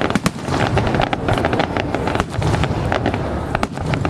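Fireworks going off in a rapid, irregular string of sharp cracks and bangs over a continuous low rumble.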